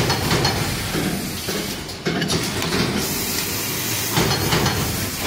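Card punching machine running, a steady mechanical clatter with repeated clicks over a constant high hiss. The noise drops briefly about two seconds in, then comes back at once.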